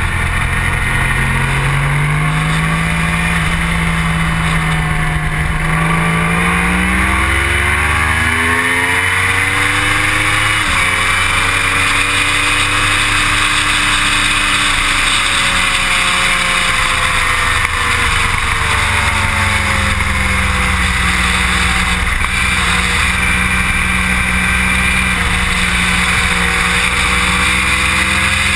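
Motorcycle engine at track speed under heavy wind rush. The engine climbs in revs, breaks sharply at an upshift about ten seconds in, then holds high revs down the straight. Around two-thirds of the way through the revs drop as it slows for the next corner, then settle and hold.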